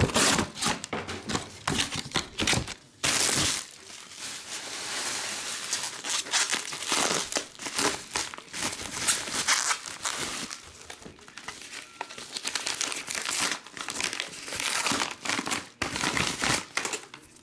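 Bubble wrap crinkling and crackling in irregular bursts as it is pulled open by hand to unwrap a trading card.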